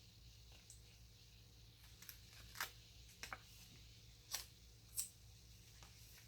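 Paper sticker sheets being handled and stickers peeled: a handful of short, quiet crinkles and ticks, the sharpest about two and a half, four and a third and five seconds in.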